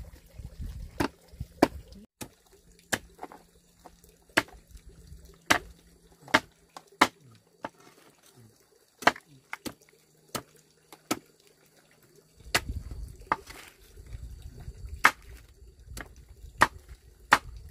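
A series of sharp chopping or knocking strikes, irregular and roughly one a second, with a pause of a few seconds near the middle. A low rumble runs under the last five seconds.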